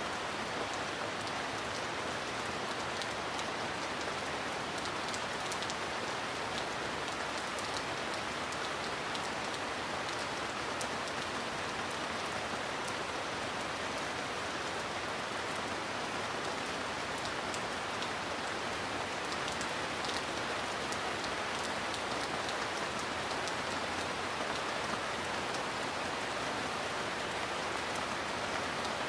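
Steady heavy rain: an even, unbroken hiss of falling rain with scattered individual drops ticking through it.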